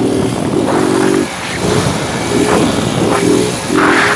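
Small motorcycle engines running at road speed, heard from a moving bike, the engine note shifting up and down in short steps as the throttle is worked.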